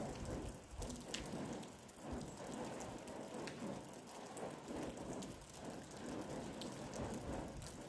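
Rain pattering on a surface: a steady hiss with scattered light ticks.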